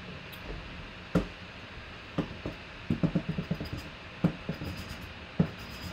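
Things being handled on a tabletop: a few separate sharp knocks and a quick run of small clicks about three seconds in, over a steady hiss.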